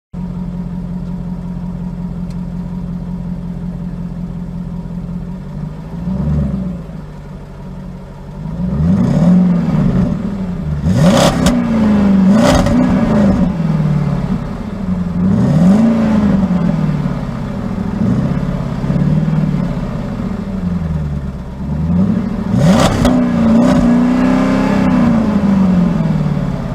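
Car engine idling steadily, then revved up and let fall again and again from about six seconds in, each rev rising and dropping in pitch. A few sharp cracks come on some of the revs.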